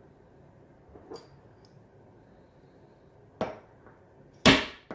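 Hammer striking the bullet seater of a hand-held reloading die, driving a 168 grain boat tail hollow point bullet into a .308 case. A light tap about a second in, then two sharp metallic blows near the end, the second the loudest.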